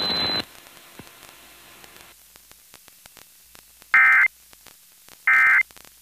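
Low hiss of dead air from an FM broadcast with faint clicks, then, about four seconds in, two short bursts of Emergency Alert System data tones just over a second apart. These are the SAME end-of-message code that closes the alert.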